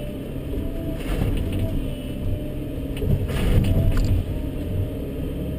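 Volvo 140BL excavator's engine running steadily under load, heard from inside the cab, as the bucket crunches through a pile of broken barn timbers, with two louder cracking crashes of wood, about a second in and a little past three seconds in.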